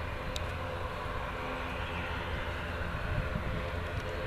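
ATR 72's twin turboprop engines and propellers droning steadily, with a deep rumble underneath.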